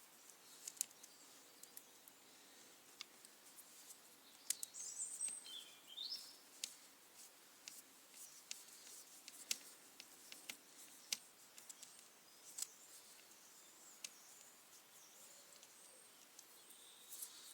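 Faint, scattered light clicks and taps of hand tools and parts being handled while a brush cutter's handle and throttle cable assembly is undone. A few short high bird chirps come about four and a half seconds in.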